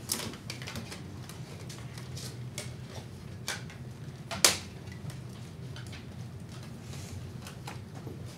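Quiet classroom as students work a problem at their desks: scattered small clicks and taps, with one sharper click about four and a half seconds in, over a steady low hum.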